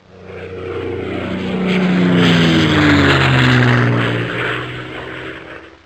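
Propeller aircraft flying past: the engine drone swells, drops in pitch as it passes, then fades away.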